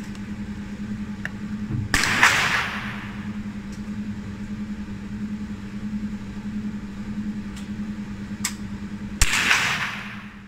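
Two shots from a .22 BSA Martini target rifle, about seven seconds apart, each a sharp crack followed by roughly a second of echo dying away. A steady low hum runs underneath.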